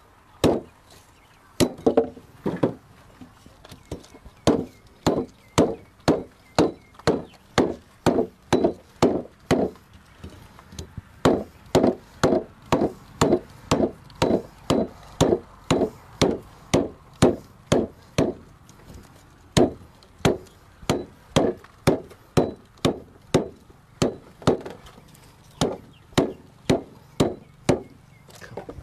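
Machete chopping into a thick saba vine stem on a bamboo table: sharp, regular blows at about two a second, with a few short pauses. The stem is hard outside but soft, spongy and fibrous within.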